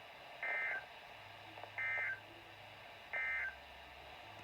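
Three short bursts of Emergency Alert System (SAME) digital data tones, each about a third of a second long and evenly spaced about a second and a half apart. This is the End of Message signal that closes an alert broadcast.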